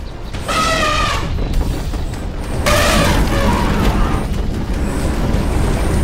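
Cartoon sound effects of a heavy boulder being pushed: a steady low rumble, with two short pitched cries, one about half a second in and one about three seconds in.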